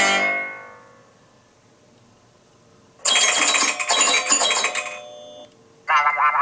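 iPhone iOS 14 ringtones and alert tones played one after another. A tone fades out over the first second; after a pause of about two seconds a bright, bell-like chime of quick high notes sounds for about two seconds. Near the end a new tone with a wavering pitch begins.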